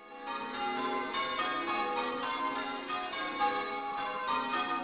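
Church tower bells change ringing: the bells strike one after another in a steady round, their notes overlapping and hanging on. The sound fades in at the start.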